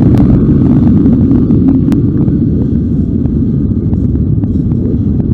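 Several dirt bike engines idling and running together, the nearest a 250cc four-stroke single on a Pitster Pro LXR250f, in a steady low rumble.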